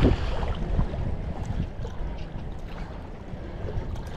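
Wind buffeting the microphone, a low rumble that gradually eases off, with a few faint ticks.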